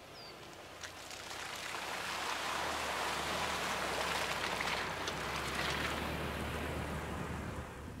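UAZ Hunter off-roader driving through a muddy puddle on a dirt track: engine running under a rush of tyres splashing water and mud. The sound grows louder as it approaches, is loudest in the middle and fades near the end as it passes.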